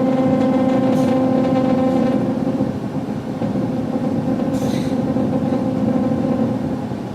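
Analog modular synthesizer holding one steady note through a state-variable low-pass filter whose cutoff is modulated by pink noise, so the tone carries a rough, grainy flutter. Its upper overtones dull about two seconds in.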